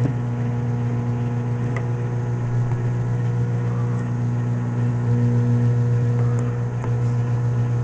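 Microwave oven running: a steady low electrical hum, with a few faint clicks.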